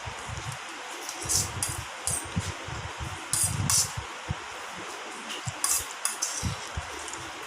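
Eating sounds from a chicken noodles eating challenge: irregular short slurps and chewing noises with light clinks of utensils on plates, over a steady background hiss.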